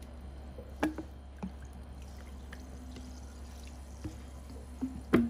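A few light knocks and clicks, scattered and irregular, over a low steady hum, with two louder knocks near the end.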